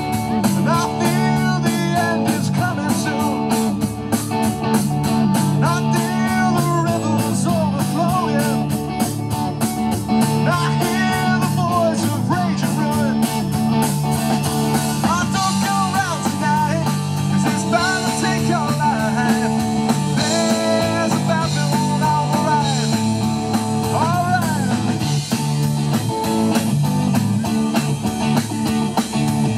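Live rock band playing amplified electric guitars, bass guitar and a drum kit, with cymbals ringing throughout.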